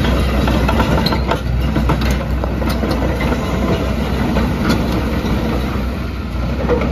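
Hitachi ZX210LC-3 excavator's Isuzu four-cylinder diesel running steadily, with irregular metallic clanks and clicks from its steel crawler tracks as the machine moves.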